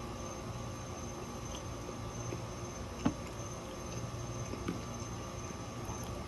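Steady low background hum with a faint, steady high-pitched tone above it, and a single soft click about three seconds in.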